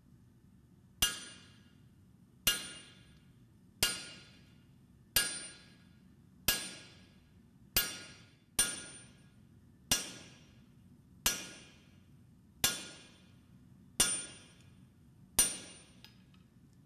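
Blacksmith's hammer striking steel in a slow, even rhythm: twelve ringing blows about one every second and a half, with one quicker extra blow near the middle. Each blow rings briefly before the next.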